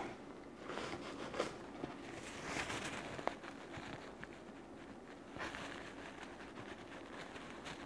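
Faint sniffles and unsteady breaths of a woman crying, with soft rustles of a paper tissue as she wipes her eyes.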